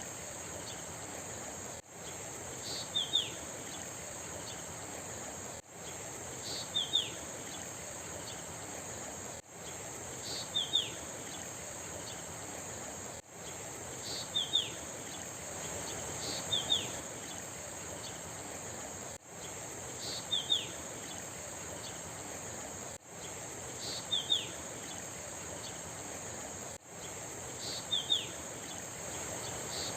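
Steady high-pitched insect drone with a short bird call, one high note then two quick falling notes, over an even rushing background. The whole pattern repeats about every four seconds with a brief dropout between repeats, a short nature recording looped.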